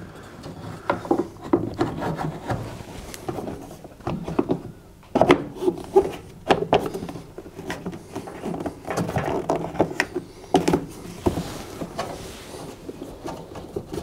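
Plastic fan cover of a tumble dryer being fitted back over the motor fan: irregular knocks, clicks and rubbing of plastic against the dryer's housing as it is pushed and worked into place, the sharpest knock about five seconds in.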